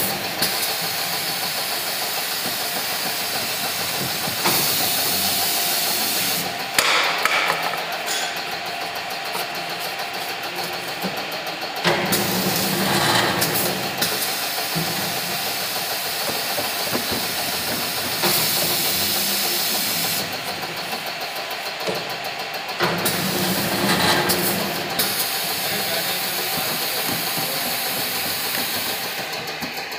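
Automatic paper core cutting machine running with a steady motor noise. Twice it brings a louder hiss lasting about two seconds, a few seconds in and again about two-thirds through. Several sharp knocks from the mechanism come in between.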